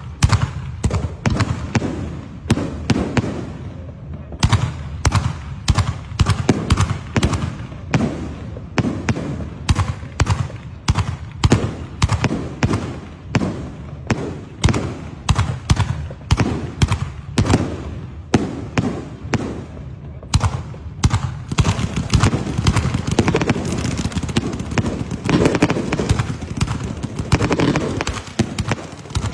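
Fireworks going off in a rapid string of sharp bangs, about two or three a second. Near the end the bangs run together into a dense, continuous crackle.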